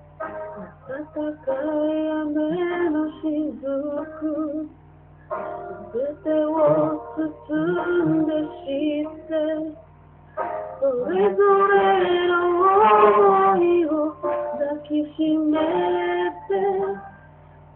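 A woman's voice singing a song over a backing track, in long phrases with short pauses between them and a longer, held phrase near the middle.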